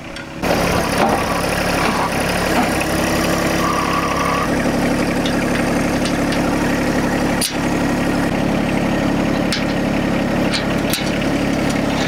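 John Deere 1025R compact tractor's three-cylinder diesel engine running steadily, its note shifting slightly about four and a half seconds in. A short beep about four seconds in and a few light clicks in the second half.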